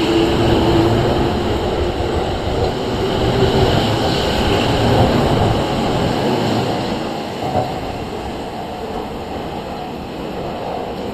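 Rinkai Line 71-000 series electric commuter train pulling out of the platform: traction motors humming and wheels rumbling as the cars roll by. The sound eases off over the second half as the train moves away.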